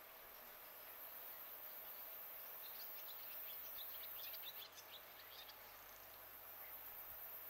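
Faint steady background hiss with a small bird twittering: a quick run of short high chirps starting about three seconds in and lasting about two seconds.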